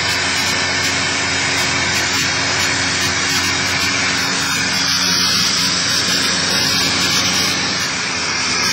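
Cessna 172's piston engine and propeller drone steadily in flight, heard inside the cabin along with airflow noise.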